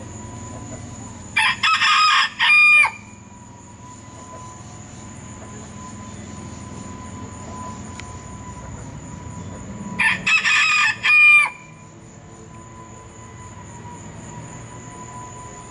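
Rooster crowing twice, about ten seconds apart, each crow under two seconds long and broken into a few parts, the last part the loudest.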